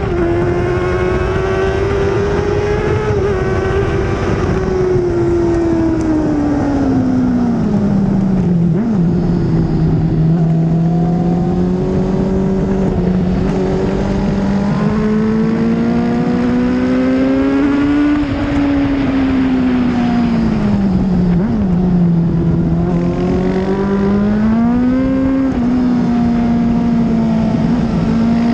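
Onboard sound of a 2004 Honda CBR600RR's inline-four engine running hard on track, over steady wind rush. The revs sweep down and climb again twice, with a short sharp blip of revs about nine and about twenty-one seconds in.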